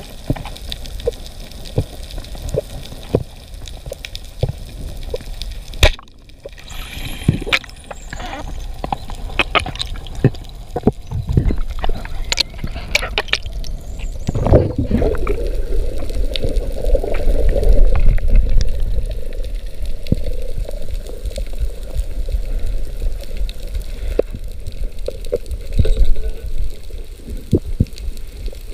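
Underwater sound picked up by a camera: a steady water hiss and bubbling, with many short sharp clicks scattered through it. About halfway through, the water noise swells louder for several seconds, then settles.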